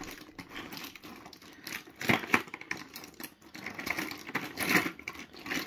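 Small metal DC motors and loose motor parts being handled and moved about on a wooden bench: irregular clicks and clatters, loudest about two seconds in and again near the end.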